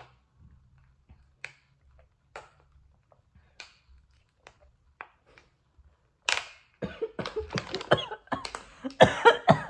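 Person gulping water from a plastic bottle, with faint swallowing clicks about twice a second. About six seconds in this breaks into a sudden, loud fit of coughing and sputtering.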